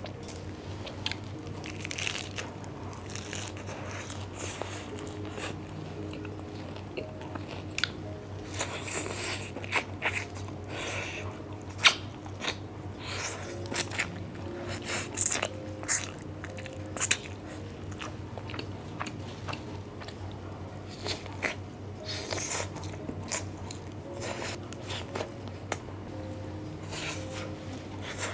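Close-miked eating: crisp bites and chewing of lettuce and crunchy grilled barbecue meat, with many sharp crunches that come thickest and loudest in the middle.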